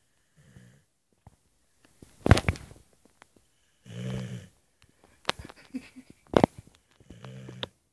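Staffordshire terrier snoring: three low droning snores about three and a half seconds apart, the first faint. Between them come two short, sharp noises, the loudest sounds here.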